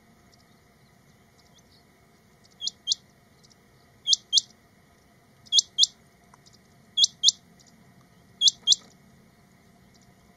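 Male rain quail calling: five loud, high double notes, each pair two quick upward-sweeping whistles, repeated about every one and a half seconds from about two and a half seconds in.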